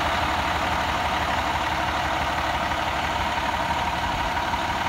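The 10.8-litre Cummins diesel engine of a 2010 International WorkStar 7600 dump truck idling steadily, with a faint steady whine running through the sound.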